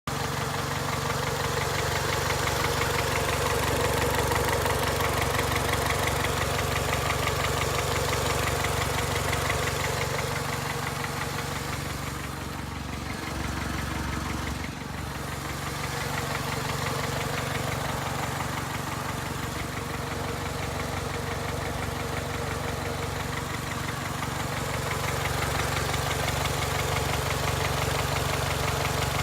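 2002 Honda Accord engine idling with a steady, rapid knocking, briefly quieter near the middle. The engine has 260,000 miles on it, and the owner can't tell whether the knock is valves needing adjustment or rod knock.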